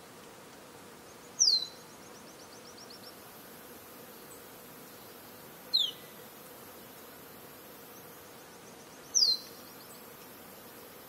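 Rainforest ambience: a steady insect drone with a high thin whine joining about three seconds in. Over it, a bird gives three loud, sharp, downward-sliding calls, the first and last each followed by a quick trail of fainter repeated notes.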